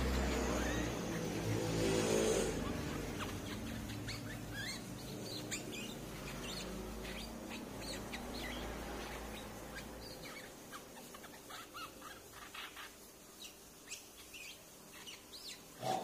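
Streak-eared bulbul calling: many short, sharp chirps and call notes scattered through the second half. A low rumbling noise takes up the first couple of seconds.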